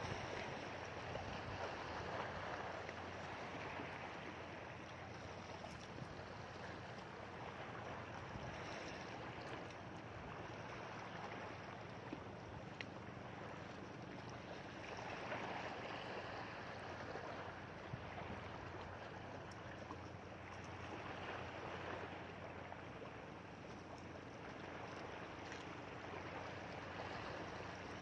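Small sea waves washing against a rocky shore: a steady rush that swells and eases every five or six seconds.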